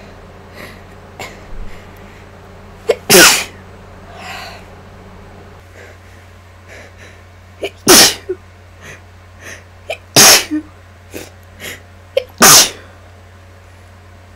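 A woman with the flu sneezing four times: one sneeze, then after a pause of several seconds three more about two seconds apart. The sneezes are induced.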